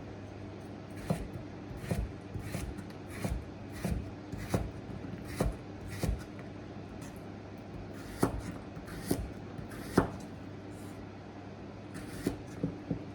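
Light knocks and clicks of kitchen utensils being handled, coming irregularly about once a second, over a steady low hum.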